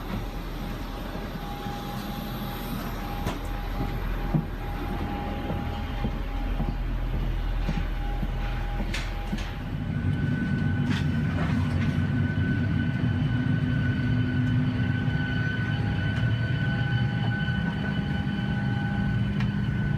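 Steady rumble and hiss of a parked Boeing 737-700's cabin with the air conditioning running. About ten seconds in it gets louder and deeper, and a steady high hum joins it.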